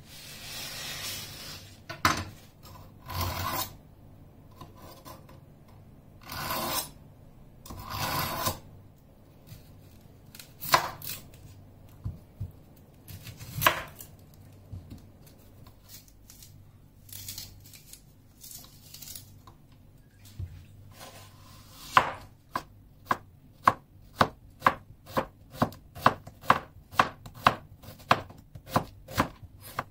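A chef's knife slicing a red onion on a wooden cutting board. The blade taps the board in a steady rhythm of about two cuts a second in the last third. Before that there are a few longer scraping strokes and scattered single cuts.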